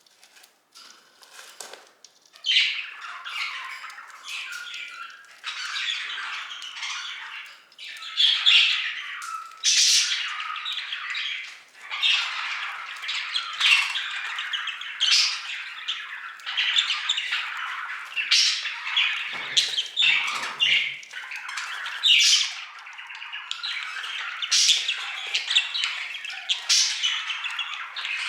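Budgerigars chattering and squawking almost without pause after a quiet first two seconds, with frequent short, sharp calls standing out.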